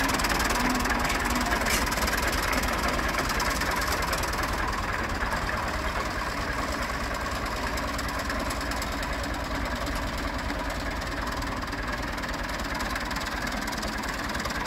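Farm tractor engine running steadily, easing off a little after about four seconds.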